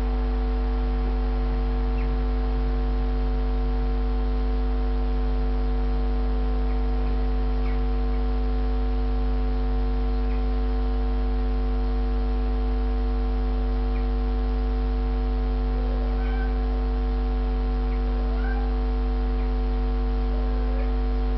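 A steady low hum with several held tones stacked above it, unchanging throughout. In the last few seconds a few short rising cries come in over it.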